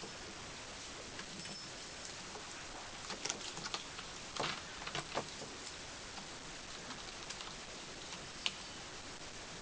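Ocicat kittens' paws and claws tapping, scratching and scrabbling in play: scattered light taps and knocks over a steady hiss, bunched together in the middle, with one sharp click near the end.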